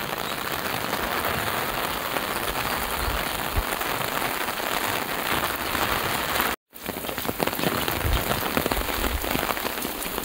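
Rain falling onto flooded paving and standing water, a steady dense hiss of pattering drops. The sound cuts out completely for a split second about two-thirds of the way through.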